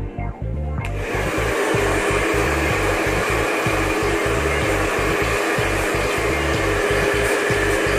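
Wahl hand-held hair dryer starting suddenly about a second in, then running steadily, an even rush of air with a steady whine.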